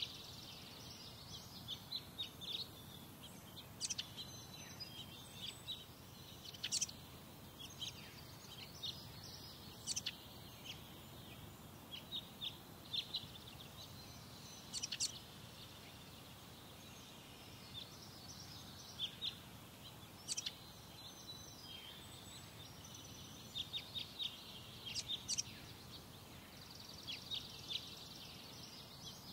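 Birds calling: many short, sharp chirps, often in quick clusters, scattered throughout over a steady low background rumble.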